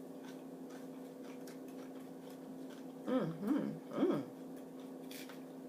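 A woman's closed-mouth 'mmm' sounds while eating a lettuce salad: three short hums rising and falling in pitch, about three to four seconds in, over a steady low electrical hum, with a few faint mouth and chewing clicks.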